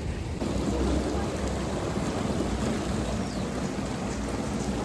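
Waterfall rushing: a steady roar of falling water that grows louder about half a second in.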